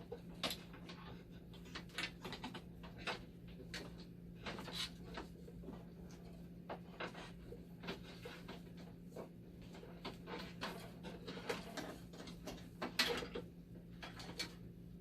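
Irregular small clicks, taps and rattles of wire connectors and metal parts being handled while a power supply's leads are reconnected, over a steady low hum.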